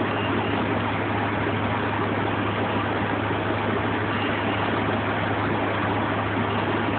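New Flyer DE40LFR diesel-electric hybrid transit bus idling while standing still, heard from inside the cabin as a steady low engine hum under an even hiss.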